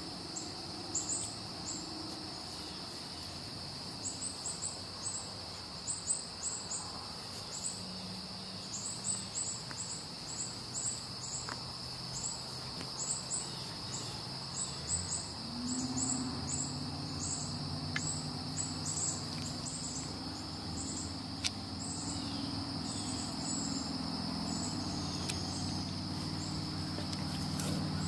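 Outdoor ambience: a steady high insect drone with clusters of short, high chirps. A low engine hum comes in about halfway through and grows louder.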